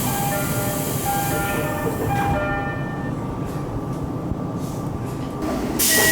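Tokyo Metro 8000 series later-batch car doors with their pneumatic door engine: an air hiss fades out while the electronic door chime sounds its short notes. About six seconds in, a fresh burst of air hiss starts with the chime sounding again.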